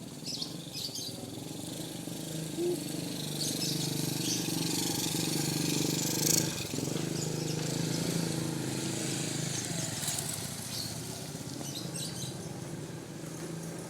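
A motorcycle engine running, growing louder toward the middle and then fading away, with short high bird chirps at the start and near the end.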